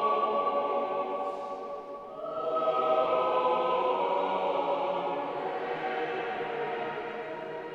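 Choral music in long held chords. It dips about two seconds in, then swells again on a new chord.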